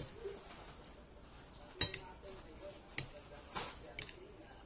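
A few sharp, short clicks over a quiet background, the loudest nearly two seconds in and two lighter ones about a second apart after it.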